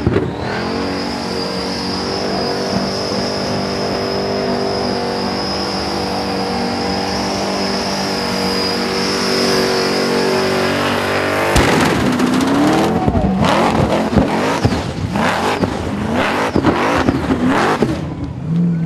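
Supercharged 350 Chevrolet V8 with a 6/71 blower doing a burnout. The engine is held at steady high revs for about eleven seconds with a high steady squeal over it. A sharp bang follows, then the engine revs up and down erratically.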